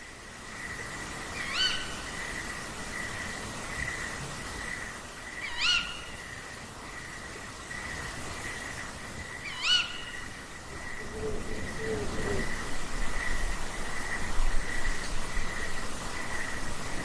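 Owls calling: three short, high, shrill calls about four seconds apart, then a few low hoots a little past the middle. A steady, high, pulsing trill runs underneath.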